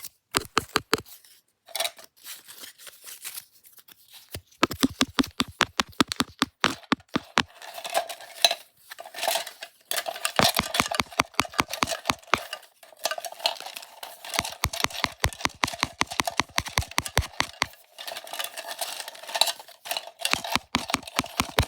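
Small wooden pieces tapped and clattered together in quick runs of clicks, several to about ten a second, broken by short pauses; from about ten seconds in the taps carry a slight ringing tone.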